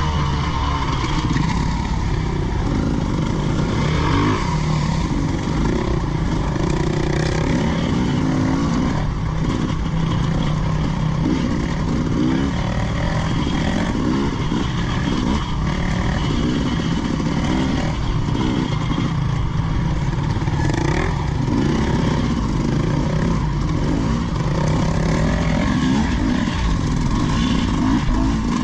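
Off-road motorcycle engine running under load, its revs rising and falling again and again as it is ridden along a trail.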